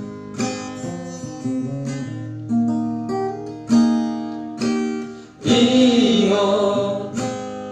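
Acoustic guitar plucking a melodic interlude of single ringing notes in a Batak song, with a fuller sustained passage, likely voices, entering about five and a half seconds in.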